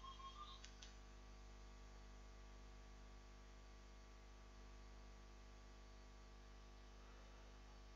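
Near silence: a steady, faint electrical mains hum of room tone, with a few faint short chirps right at the start.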